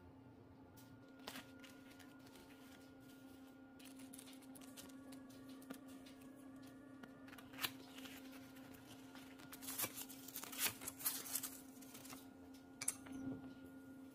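A cardboard box being opened and its contents unpacked: scattered clicks, taps and paper rustling, densest a little past the middle, over a faint steady hum.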